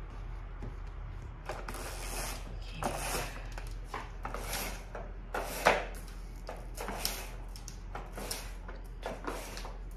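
Roller blind being pulled down over a window, its mechanism giving a series of irregular rattles and scrapes, the loudest a little over halfway through.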